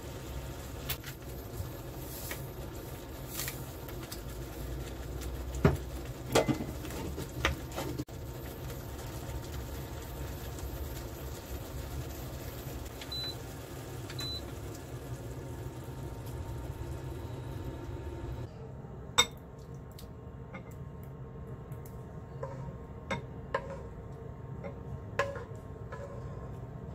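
Tomato sauce simmering in a frying pan on an induction hob, a steady hiss with a few sharp pops. Two short beeps as the hob's button is pressed midway, after which the steady hiss drops away, and a wooden spatula knocks and scrapes as the sauce is tipped from the pan into a ceramic bowl.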